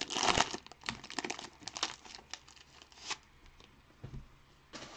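Trading-card pack wrapper being torn open and crinkled by hand, most dense in the first second and a half, then fainter crackles and clicks as the cards are handled.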